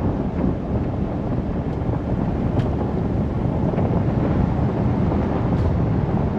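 A vehicle driving on a dirt and gravel forest road: a steady low rumble of tyres, suspension and engine, with a few faint ticks.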